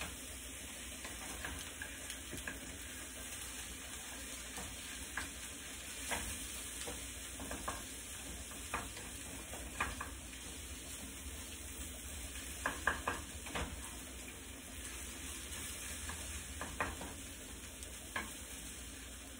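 Scrambled eggs with peppers sizzling in olive oil in a small frying pan, with scattered scrapes and taps of a wooden spoon stirring them, a few in quick succession about two-thirds of the way through.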